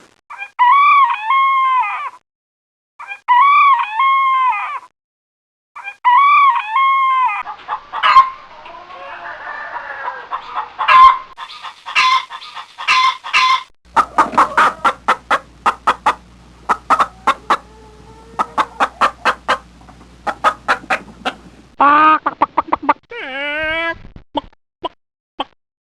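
Chickens calling: three long drawn-out calls in the first seven seconds, then hens clucking and cackling in quick runs of short notes over a low steady hum, with a few more drawn-out calls near the end.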